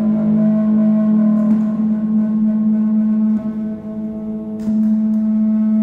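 Sustained electronic drone of steady layered tones from a Max patch's delay-and-feedback loops playing back processed recorded sound. It dips in level just past the middle, with a brief noisy tick soon after.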